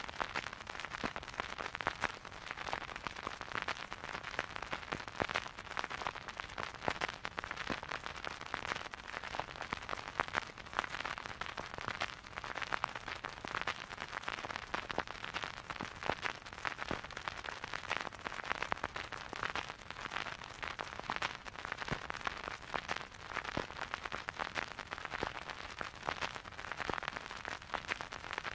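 Vinyl record surface noise: a steady crackle and hiss from the stylus in the groove, thick with small pops and clicks, with no music playing.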